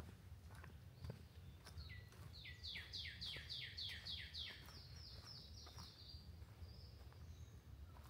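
A songbird sings a single fast run of about ten repeated, downward-sweeping notes lasting around four seconds, over faint regular footsteps on the forest trail.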